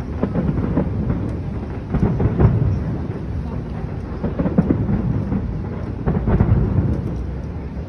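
Fireworks display: continuous low booming with dense crackling bursts layered on top, swelling louder about two seconds in and again around five and six seconds in.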